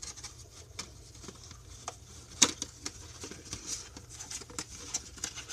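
Light rustling and scattered small clicks of tea packets being handled and picked through, with one sharper click about two and a half seconds in.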